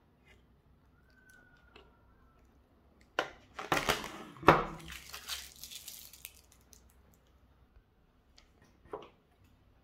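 Anti-static plastic bag crinkling and rustling as it is handled, with one sharp crack in the middle of the crinkling. A brief fainter rustle comes near the end.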